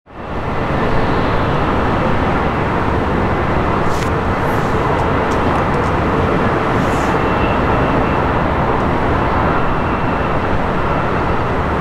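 Steady roar of jet aircraft engines, even in loudness throughout, with a faint high whine joining about seven seconds in.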